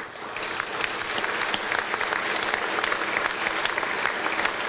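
Audience applauding, the clapping building over the first second and then holding steady.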